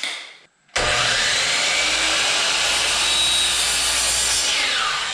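Electric saw starting up and cutting a length of wood crown molding, then a falling whine near the end as the blade spins down.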